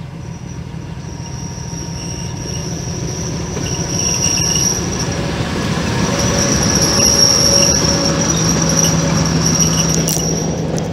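Diesel locomotive passing close by, growing louder to a peak about seven seconds in, with a steady high-pitched squeal of wheels on the rails and a low engine hum that strengthens near the end.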